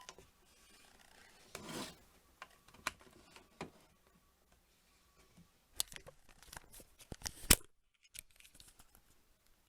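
Faint handling noise: a short rustle about a second and a half in, then scattered small clicks and taps, bunched from about six seconds in, the last one the loudest.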